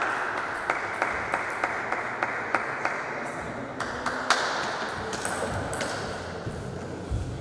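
Table tennis rally: the celluloid-type ball clicking off rubber bats and the table about three times a second, with a louder hit about four seconds in, after which the clicks thin out.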